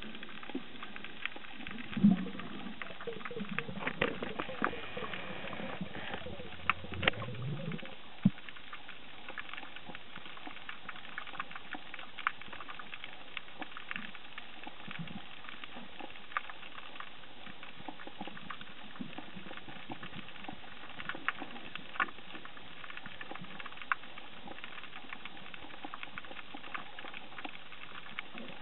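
Underwater ambience picked up by a submerged camera: a steady crackle of many small clicks. In the first eight seconds there are a few louder knocks and low sounds, one rising in pitch about seven seconds in; after that only the crackle remains.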